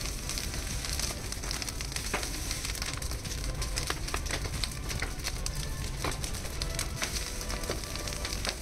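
Wood fire of leafy branches and tree bark burning in the firing openings of a brick kiln, crackling and popping: a steady rush of flame with frequent sharp pops.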